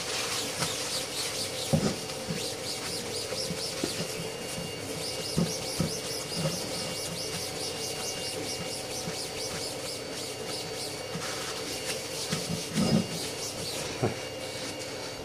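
Paper towel wet with isopropyl alcohol rubbed briskly back and forth over a flat machined aluminium plate: a quick, even run of hissy wiping strokes, several a second. The strokes die away about 11 s in, with a few soft knocks near the end.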